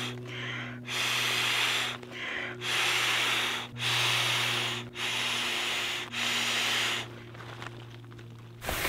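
Repeated rasping, rubbing strokes, about one a second, easing off near the end, over a steady low hum.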